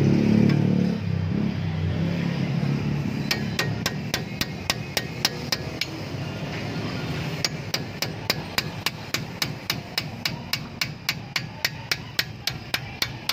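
Hammer tapping a steel punch against the brake caliper's pad retaining pins to drive them out: sharp metallic taps at about three a second, beginning a few seconds in, with a short pause midway. A low rumble is loudest over the first second or so.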